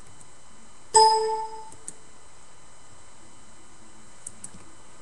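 A single bell-like ding about a second in, ringing out and fading within under a second, over faint steady hiss.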